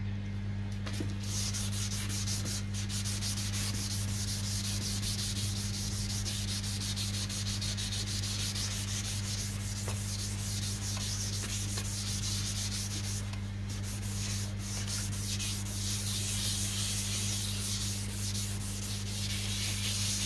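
800-grit sandpaper rubbed by hand in quick back-and-forth strokes over a wet plastic headlight lens, a steady scratchy hiss as it takes off the oxidised, hazed surface layer. A steady low hum sits underneath.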